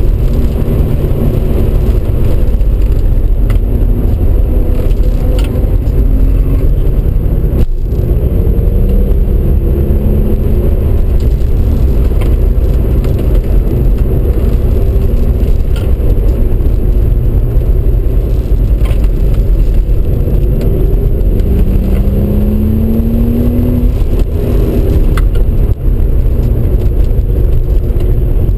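Cabin noise of an Audi RS4 B5 driven hard: a heavy, steady low rumble of road and engine. The 2.7-litre twin-turbo V6's note rises under acceleration twice, about a third of the way in and again near the end.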